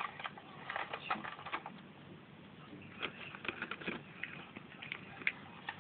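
Irregular light clicks and taps, in two quick clusters about a second in and about three seconds in.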